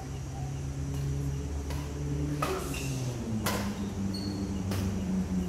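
Badminton rally: four sharp racket hits on the shuttlecock about a second apart, over a steady low hum.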